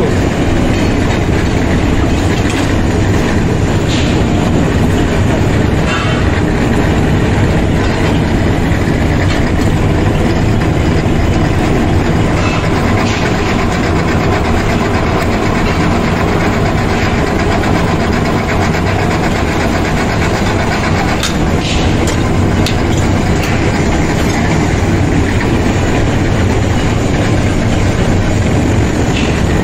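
Heavy metalworking machinery running steadily and loudly, with a few short metallic clicks and knocks.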